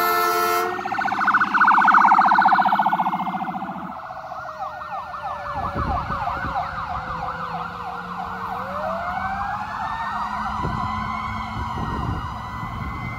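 Emergency vehicle sirens as an ambulance and a fire truck pull away. A horn blast ends about half a second in, then an electronic siren gives a rapid warble that settles into a yelp of about four sweeps a second, while a second siren's pitch slowly falls and then rises again about two-thirds of the way through. Engine rumble underneath.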